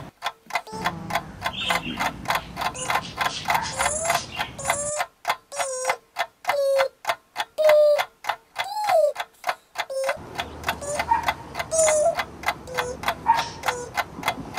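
Clock ticking with rapid, even ticks, standing for a time bomb counting down, with faint sliding pitched sounds between the ticks.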